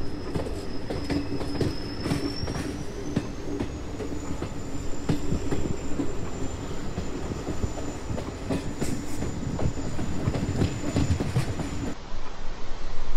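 Train carriage running on rails: a steady rumble with wheel clicks and a thin, high squeal that rises in pitch about two seconds in and then holds. Near the end the train sound cuts off abruptly into a plain steady hiss.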